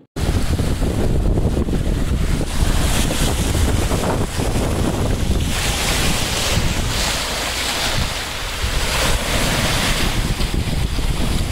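Small waves lapping and splashing against a concrete pipe at the water's edge, with wind rumbling on the microphone throughout. The splashing grows louder about halfway through.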